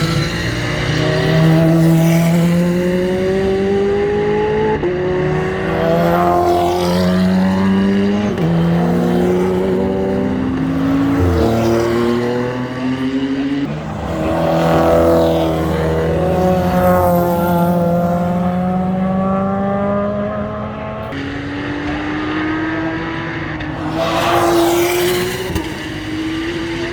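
A stream of GT3 race cars passing one after another at racing speed, engines climbing in pitch and breaking at each upshift, several cars overlapping, with the loudest passes near the start and about halfway through.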